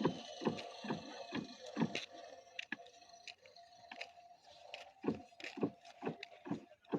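A series of irregular knocks and taps, a few a second, over a faint steady tone.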